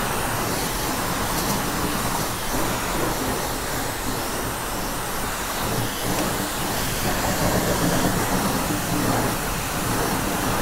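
High-pressure water spray from a self-serve car wash wand striking a motorcycle and the wet concrete floor: a steady hiss.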